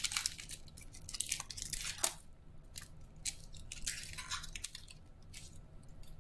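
Foil wrapper of a Panini Mosaic basketball card pack crinkling and tearing as the pack is opened by hand. A dense run of crackles in the first two seconds thins to scattered crinkles.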